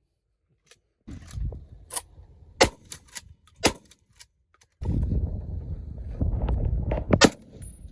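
Gunshots at a shooting range: about seven sharp reports at irregular intervals, some loud and close, others fainter, the loudest about two seconds in and near the end. A low rumble of noise runs under the second half.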